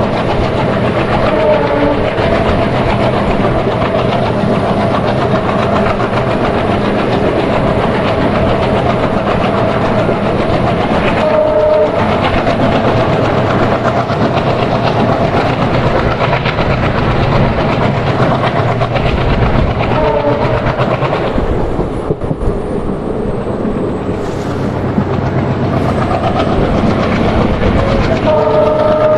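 Uttaranchal Express passenger train running on the track, its wheels clattering over the rail joints in a steady loud rumble. Short horn notes sound three times, and a longer horn blast starts near the end.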